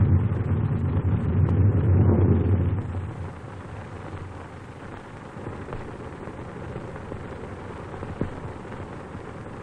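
Thunder: a heavy, deep rolling rumble that dies away about three seconds in, leaving a quieter, even noise from the old film soundtrack.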